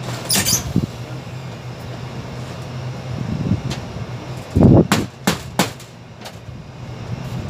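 Knocks from work on a sheet-metal air duct during removal of a volume damper: a single sharp knock near the start, then a thump and three quick sharp knocks about five seconds in, over a steady low hum of rooftop machinery.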